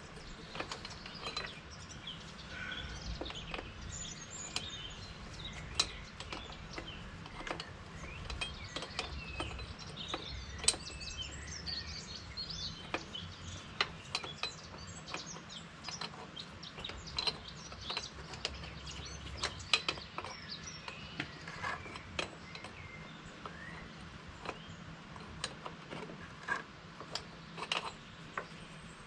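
Small birds chirping and twittering throughout. Sharp clicks and knocks at irregular intervals come from hand-tool work on hydraulic hose fittings.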